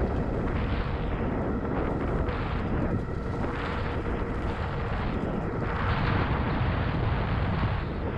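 Wind buffeting the microphone, with tyre rumble from an Engwe Engine Pro 2.0 fat-tyre electric bike ridden at about 47 km/h on asphalt. The noise is steady and surges a little from moment to moment.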